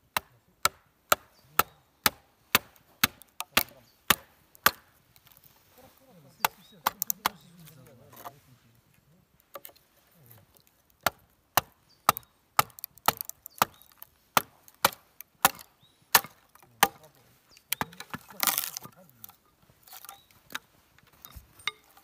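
Wooden baton repeatedly striking wooden wedges driven into a log to split it lengthwise, sharp knocks about two a second with a pause in the middle. A longer crackling near the end as the wood tears apart along the grain.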